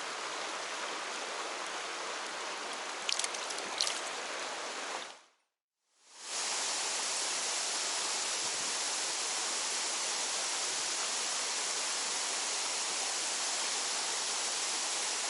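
Mountain stream water rushing steadily, with a few light clicks about three seconds in. The sound fades out to silence about five seconds in and fades back in a second later, the water a little louder afterwards.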